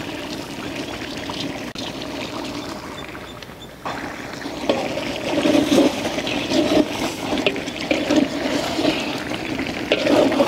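Thick chicken gravy with crushed fried onions being stirred in a large aluminium pot: wet sloshing and squelching with small clicks. It gets louder from about four seconds in.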